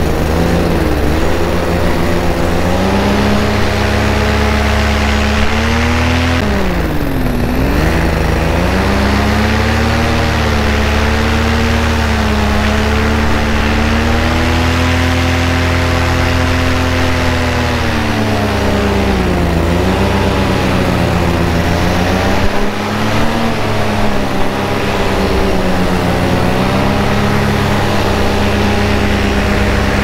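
Paramotor engine and propeller running in flight, a loud steady drone whose pitch wavers with the throttle. About seven seconds in it dips sharply and climbs straight back, with smaller dips near the twenty-second mark.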